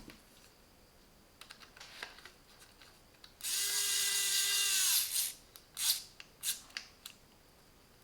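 Parkside PEPS 3 B1 electric precision screwdriver's small motor running for about a second and a half, its whine dropping in pitch as it stops. A few light clicks before and after it.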